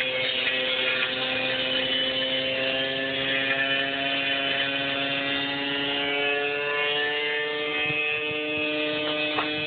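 Washing machine with a piece of metal inside, its drum spinning with a steady whining hum whose pitch drifts slowly down. A few sharp knocks come near the end.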